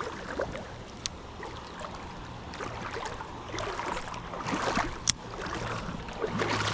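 Creek water running and splashing, with two sharp clicks, about a second in and about five seconds in.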